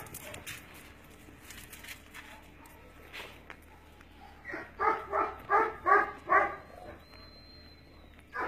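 A dog barking: a quick run of about six short barks near the middle, after a few faint knocks.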